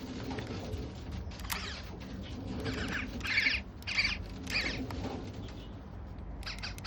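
A Fuji 120 film camera's film advance making a run of short, squeaky, scratchy chirps, about one every two-thirds of a second, as the film is wound on. The title calls this a super weird sound.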